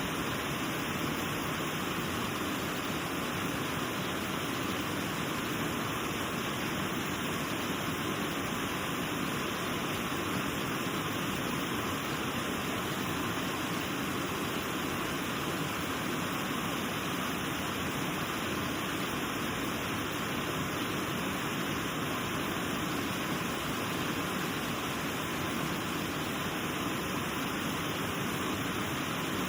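The Elk River rushing over a waterfall: a steady, unbroken rush of falling and flowing water.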